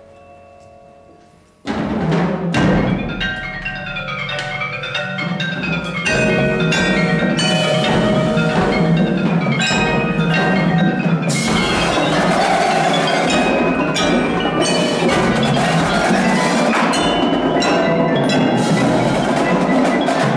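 Indoor percussion ensemble playing: soft held tones, then about two seconds in a sudden loud entry of the whole group, with quick rising and falling marimba and xylophone runs over drums that build to a dense, loud texture by about six seconds in.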